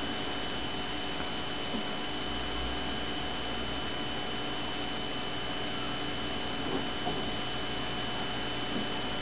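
Steady electrical hum and hiss with several fixed tones, and a few faint small ticks about two seconds in, near seven seconds and near the end.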